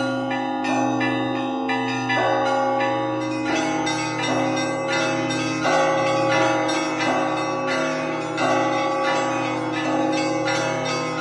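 Russian Orthodox church bells hand-rung in the traditional zvon style: small bells struck in a quick, repeating rhythm over the sustained hum of the larger bells, with heavier strokes every couple of seconds.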